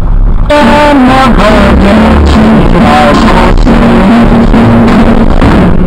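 Music with a melodic lead line and a regular beat, starting abruptly about half a second in and loud.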